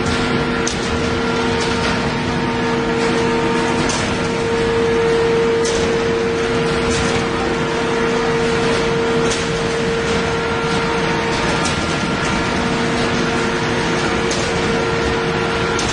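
Steel sheet processing line running: a steady machine hum and whine from the motors and rolls as hot-rolled steel sheet feeds through, with occasional clicks.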